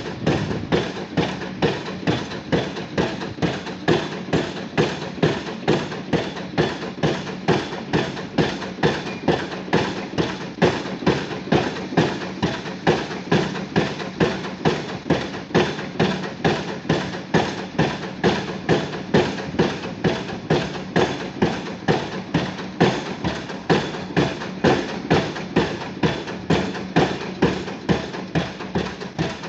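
Junttan PMX22 pile driving rig's hammer striking a pile in a steady rhythm, about three blows every two seconds, over the rig's engine running steadily.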